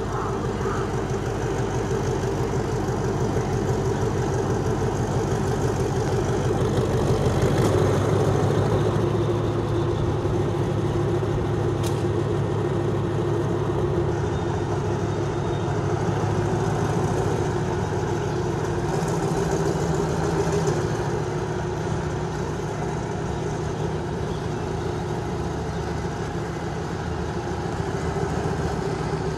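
Diesel locomotive's MTU engine idling steadily, a low even beat with a slight swell about eight seconds in.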